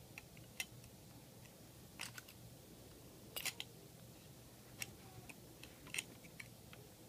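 Faint clicks and taps of a diecast alloy front-loader garbage truck toy's lift arms and plastic dumpster being worked by hand: about five sharp clicks at irregular intervals, with lighter ticks between.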